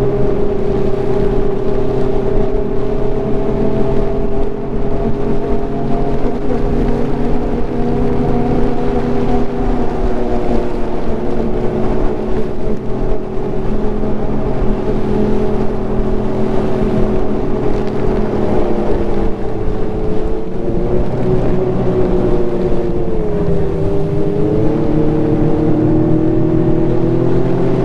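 Ski-Doo Renegade Enduro 900 ACE Turbo snowmobile's three-cylinder turbocharged engine running steadily at trail-riding speed. Its pitch dips briefly twice near the end, then comes back up.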